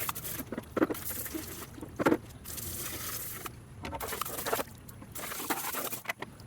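Fresh water from a hose spattering and trickling over a plastic robotic pool cleaner in uneven bursts, with a few sharp plastic knocks as it is handled.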